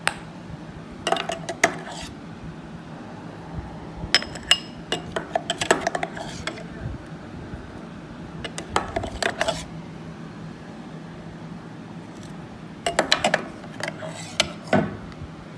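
A spatula scraping and tapping against a stainless-steel mixer-grinder jar and a ceramic bowl as thick mayonnaise is scraped out. The clatter comes in four short bursts of clicks and scrapes with pauses between.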